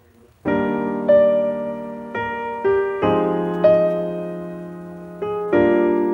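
Background music played on piano: slow, gentle notes and chords struck one after another, each ringing and fading, coming in about half a second in.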